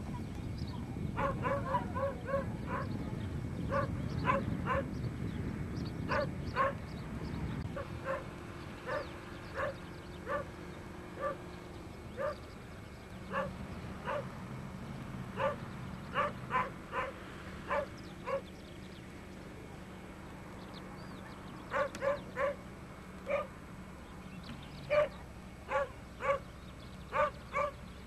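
A dog barking over and over, in short barks that come in runs with pauses of a few seconds between them. A low rumble lies under the barking for the first several seconds.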